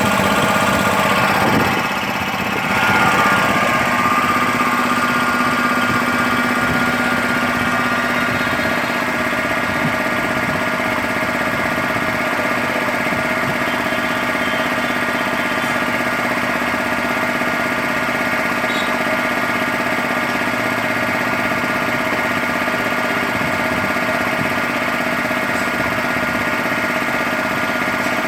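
1990 Bauer high-pressure air compressor running steadily, filling an 8-litre tank: a dense mechanical drone with a brief dip in level about two seconds in.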